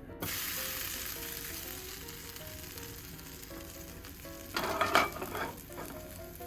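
A steady sizzling hiss, like food frying in a hot pan, that starts suddenly and slowly eases, with a louder crackling flare about halfway through.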